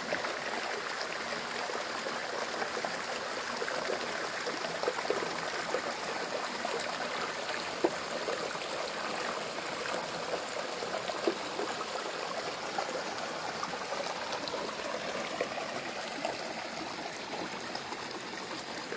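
Small hill stream running downhill, a steady rushing of water. Two brief clicks come through it about 8 and 11 seconds in.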